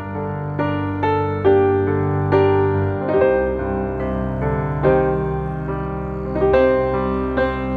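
Background piano music: a slow melody of single struck notes, roughly one to two a second, over held low notes.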